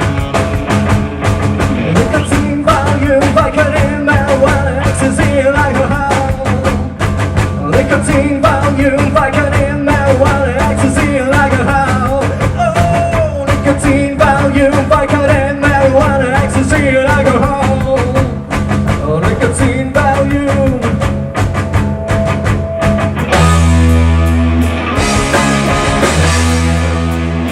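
Live rock band playing: drums and bass under a bending lead melody line. About 23 seconds in, the band switches to long, heavy sustained chords.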